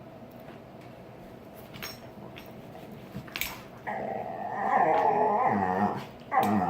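Dogs growling in play during bitey-face mouth-wrestling: a long wavering growl starts about four seconds in, and a second short one comes near the end, after a few quiet seconds with faint clicks.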